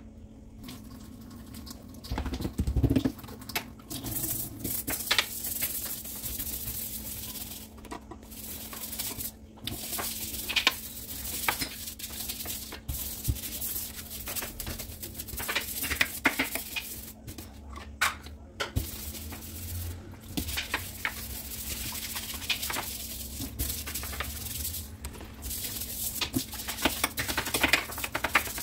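Hand brush scrubbing a granite countertop and stainless steel sink with foamy scouring cleanser: a continuous scratchy rasping broken by small knocks of the brush against the sink. Tap water starts running near the end.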